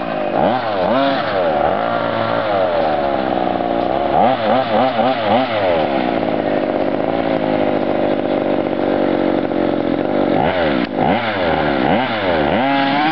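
Small two-stroke petrol engine of a 1:5-scale RC monster truck, revved up and down in quick bursts while driving. It holds a steady high pitch for a few seconds in the middle, then revs sharply up and down again near the end.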